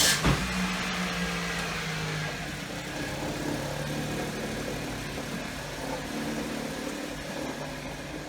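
2007 Pontiac Vibe running on a test drive, a steady engine note under a rush of noise, with a short knock at the start. Its exhaust manifold joint is freshly resealed with a new donut gasket and spring bolts, so it no longer sounds like a hot rod.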